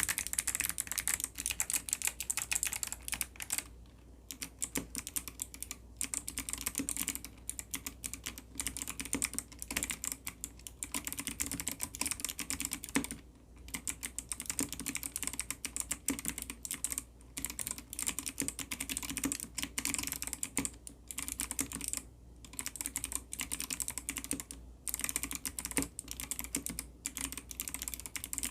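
Typing on an ABKO ADK05 mechanical keyboard with Kailh Box White clicky switches: a fast, steady run of crisp key clicks, broken by a few short pauses.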